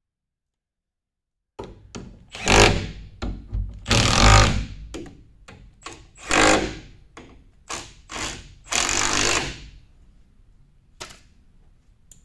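Cordless impact wrench hammering on bolts on the sweeper's brush mount, in a series of short trigger bursts starting about a second and a half in, the longest lasting about a second.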